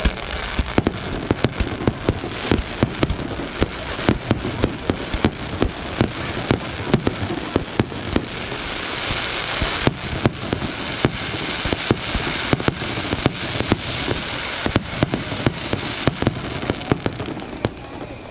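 Fireworks display: a dense barrage of aerial shell bursts, several bangs a second over continuous crackling.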